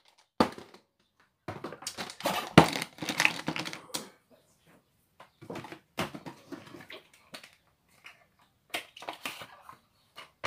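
Makeup tools and containers clattering and knocking as someone rummages through them looking for a brush: an irregular string of clicks and rattles, with a sharp knock about two and a half seconds in.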